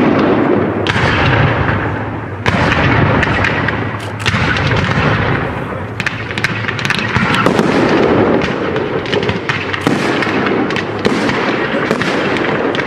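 Fireworks display: aerial shells bursting with loud booms every couple of seconds, over a continuous crackle of smaller reports.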